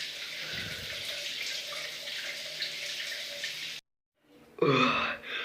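Water running steadily from a tap, which cuts off abruptly about four seconds in. A voice starts speaking just before the end.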